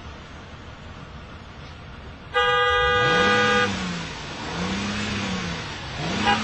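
Car horn blasting loudly for about a second, starting suddenly about two seconds in over a steady hum of traffic. It is followed by a low tone that rises and falls three times.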